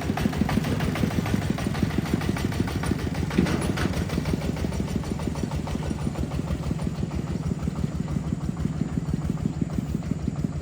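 A small truck's engine running steadily, with a fast, even beat.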